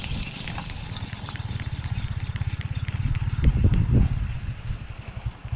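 A small engine running steadily, a fast, even low throb.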